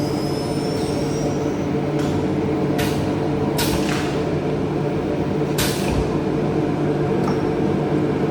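CNC panel-processing machinery in a cabinet workshop running with a steady hum, broken about four times by short hissing bursts like compressed air being released.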